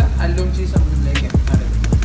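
Background music with a steady beat, a low kick drum hitting about every 0.6 seconds over a bass line.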